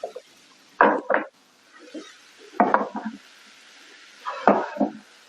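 Wooden boards being handled on the bench: three short clusters of knocks and scrapes.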